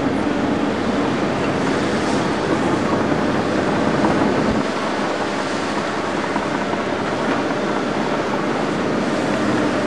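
Diesel engines of tracked hydraulic excavators running steadily while they dig out spoil.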